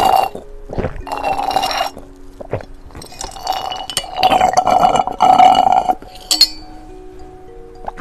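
Loud slurps of a drink sucked up through a straw from a glass, in several long pulls, over background music with a plain melody. A short glass clink about six seconds in.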